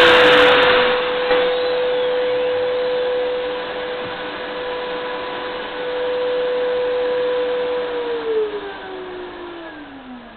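Household vacuum cleaner, used as the router's dust extractor, running with a steady whine, then switched off about eight seconds in, its motor pitch sliding down as it winds down. At the very start the BLACK+DECKER KW1200EKA router, just switched off after the cut, is still spinning down.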